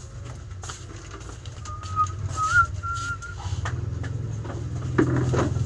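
A few short whistled notes, a thin wavering tone held for about a second and a half, over scattered light knocks and clatter and a steady low hum. A sharp knock comes near the end.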